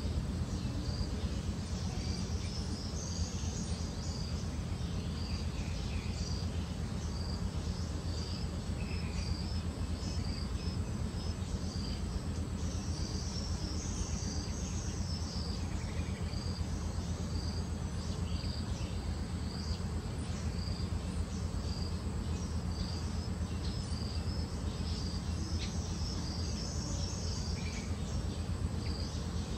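Insects chirping: short, high-pitched chirps repeating roughly once a second, over a steady low rumble.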